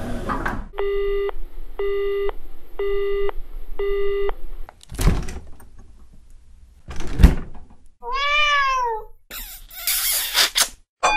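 A string of separate sound effects, one after another. First a short hiss, then four identical beeps, then two sharp knocks a couple of seconds apart. Next comes a single cat meow that rises and then falls, and finally a few bursts of noise.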